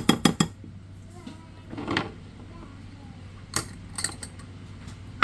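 A metal spoon clinks rapidly against a bowl while curry seasoning and spices are mixed, stopping about half a second in. A few scattered knocks and clinks follow, with a sharper knock near the end.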